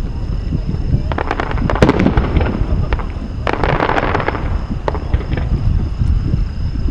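Aerial fireworks shells bursting, with sharp bangs and dense crackling that come in clusters about a second in and again around four seconds, over a steady low rumble.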